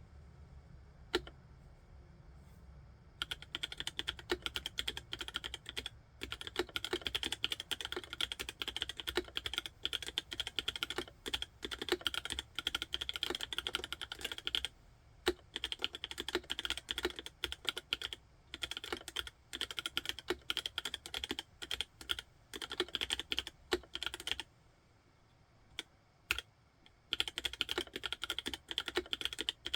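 Mechanical keyboard being typed on: a few single keystrokes, then fast continuous typing about three seconds in, pausing briefly twice before resuming.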